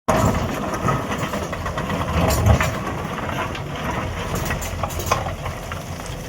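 Hyundai 210 excavator's diesel engine running steadily, with scattered clanks and scrapes from the machine at work and a heavier thud about two and a half seconds in.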